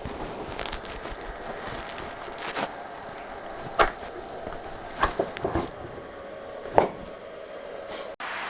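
A few sharp knocks over a steady hum: about five separate strikes, the loudest about four and seven seconds in, with the sound cutting out for an instant near the end.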